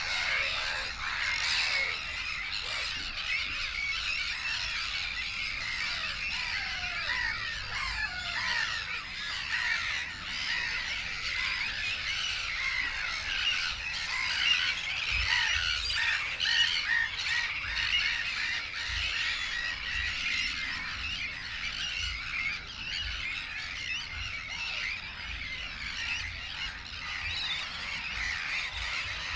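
A dense, unbroken chorus of many birds calling over one another: a constant din of short, overlapping calls.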